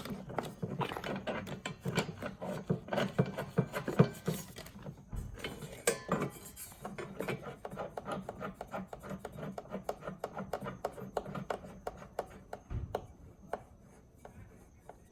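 Heater-line fittings being screwed on by hand: irregular metal clicking and scraping, dying down near the end.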